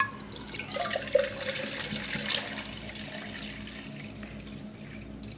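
Water poured from a plastic bottle into a Jetboil Flash cooking cup, a continuous splashing trickle as the cup fills toward its fill line.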